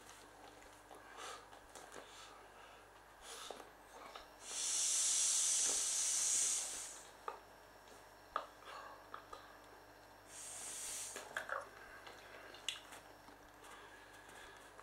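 Mouth inflation of a vinyl clownfish pool toy: two breathy hisses of air at the valve, a long one of about two and a half seconds a few seconds in, and a shorter, weaker one later, with small clicks between.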